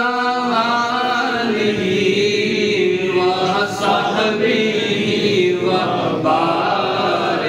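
A man's unaccompanied voice chanting a manqabat, a devotional poem sung to a slow melody, with long held, wavering notes.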